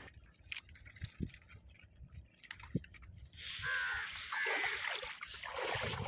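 Water sloshing and splashing against the hull of a small fishing boat, quiet at first with a few faint knocks, then a steady wash of water noise from about halfway.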